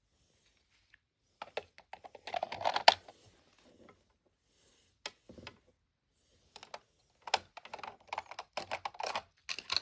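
Miniature plastic toy groceries clicking and clattering against a small plastic toy fridge as they are set inside: irregular runs of quick light taps, busiest in the second half.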